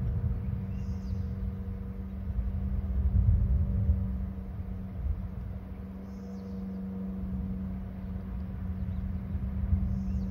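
Low rumbling outdoor noise with a steady low hum underneath, and three brief high chirps: about a second in, around six seconds in, and near the end.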